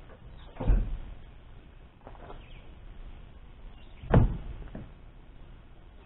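Two thumps about three and a half seconds apart, the second the louder, as a pickup truck's tailgate and truck-cap rear hatch are slammed shut.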